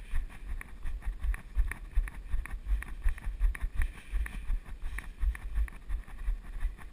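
Running footsteps on pavement thudding through a body-worn action camera, a steady beat of about three footfalls a second, with wind rushing over the microphone.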